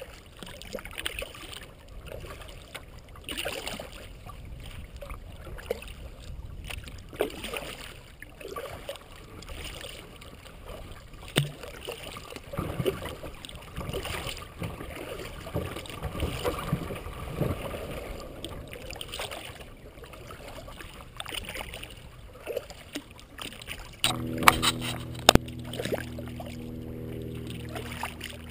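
Kayak paddle strokes through calm water: the blade dipping and pulling with swishes and drips every second or two. Near the end a steady low hum comes in, along with a few sharp knocks.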